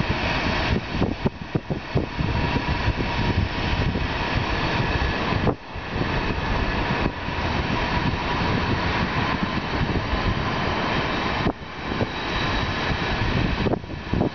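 Steady rushing noise of wind buffeting the camera microphone over a background hum of city traffic, dropping out briefly twice.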